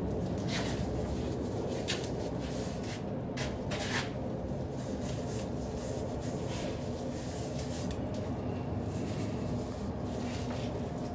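Gloved hand rubbing wet mortar over and into the joints of a glass block panel: a run of short scraping strokes, closer together in the first few seconds and sparser after, over a steady low background rumble.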